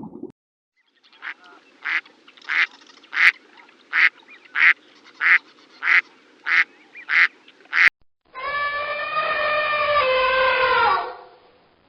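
A duck quacking in a steady series, about eleven quacks spaced a little over half a second apart. After a break, a long held pitched sound with a slight fall in pitch takes over for a few seconds.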